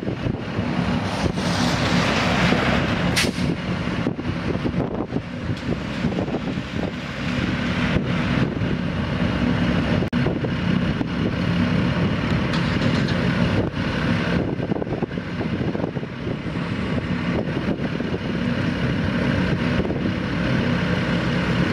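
Engines running steadily at idle: an even low drone with a constant hiss over it.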